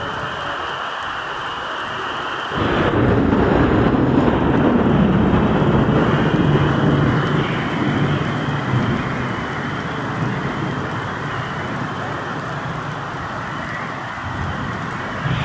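Heavy rain falling steadily. About two and a half seconds in, a louder low rumble sets in suddenly, is strongest for a few seconds, then slowly dies away.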